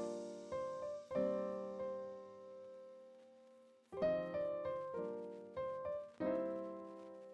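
Background piano music: chords and single notes struck and left to ring, in a slow, gentle pattern with a pause about four seconds in.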